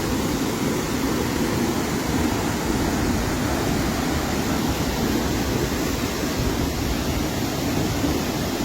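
Menal waterfall in full flow: a steady, even rush of falling water, deep and low, with no breaks.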